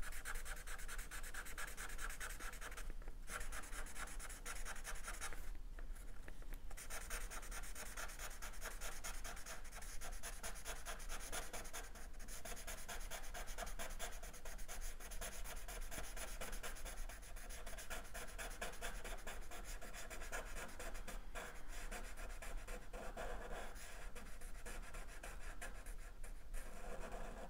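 Sharpie marker scratching on drawing paper in rapid back-and-forth strokes, shading in a solid black area, stopping briefly a few times.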